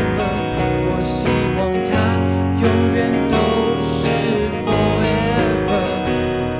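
Band music: a song played on strummed guitars and bass.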